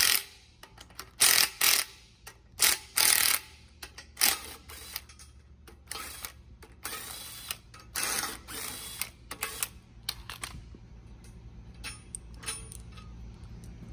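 Cordless impact wrench run in a series of short bursts, backing out hex bolts threaded into a steel end plate. The bursts are loudest in the first few seconds, come again a few seconds later, and die away near the end.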